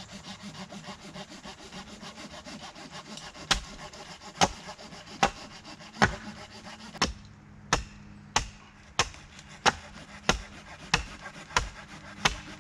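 A hatchet chopping the end of a wooden pole to square it off: sharp strikes of the blade into wood, starting about three and a half seconds in and repeating about every three-quarters of a second, a dozen or so in all. A steady scraping runs underneath in the first half.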